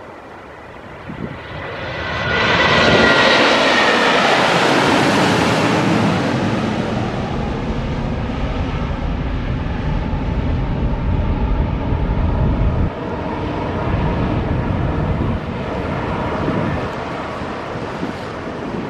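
Airbus A330-300's Rolls-Royce Trent 700 turbofans at takeoff thrust as the airliner lifts off and climbs away. The engine noise swells over the first three seconds with a high fan whine on top, then slowly fades to a low rumble as the jet recedes.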